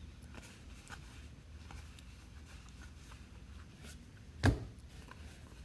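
Faint rustling and small clicks of trading cards being handled and sorted by hand, with one sharp knock about four and a half seconds in.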